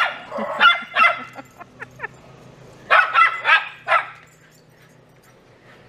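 Miniature schnauzers barking in sharp, high-pitched yaps at a squirrel overhead. A few barks come at the start, then a quick run of four about three seconds in, after which it goes quieter.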